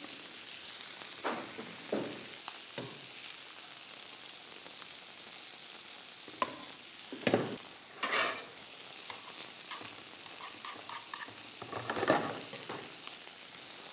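Butter sizzling steadily in a frying pan as ribbons of carrot are stirred and tossed with a perforated spatula. Several short scrapes and clatters of the spatula against the pan break the sizzle, the loudest about seven, eight and twelve seconds in.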